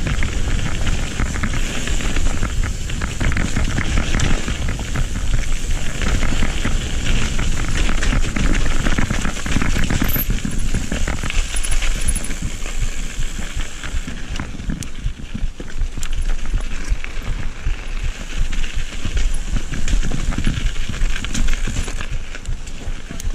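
Mountain bike ridden fast down a wet, part-snowy dirt trail: continuous tyre noise over the rough ground with the bike rattling over the bumps.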